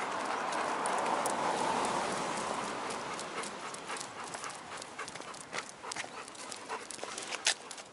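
Golden retrievers panting on a walk, with a close rushing noise over the first couple of seconds. After that come irregular sharp clicks of their claws on brick paving.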